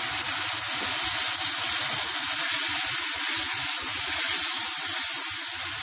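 A little water added to hot oil in a wok of frying onions and tomatoes, sizzling and hissing steadily as it flashes into steam.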